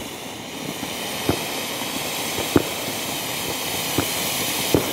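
Firework ground fountain hissing steadily as it sprays sparks, growing slightly louder, with about four sharp pops about a second apart.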